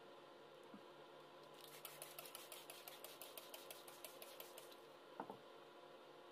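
Faint, rapid clicking, about nine even clicks a second for about three seconds, followed by a single light knock.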